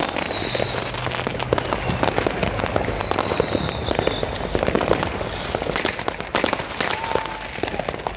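Many fireworks and firecrackers going off at once: continuous crackling and popping. A firework whistle falls in pitch from about one to four seconds in, and a few louder bangs come about two-thirds of the way through.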